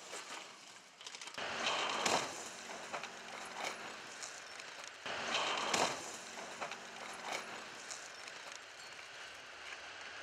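Crash-test car hitting a steel guardrail and concrete barrier: bursts of scraping and crunching with sharp impacts, about two seconds in and again around five to six seconds in.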